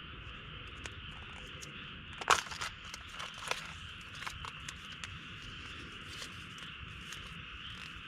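Crickets chirring steadily, with a handful of short crunching, crinkling handling sounds, the loudest about two seconds in and a few more over the next couple of seconds.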